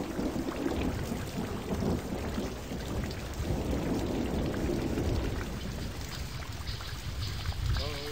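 Rainstorm ambience: a steady hiss of falling rain with low, rumbling thunder that swells twice.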